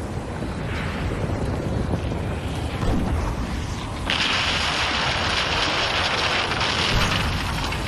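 Erupting volcano's lava fountains roaring, heard as a steady low rumble mixed with wind buffeting the microphone; a louder hissing rush starts suddenly about four seconds in.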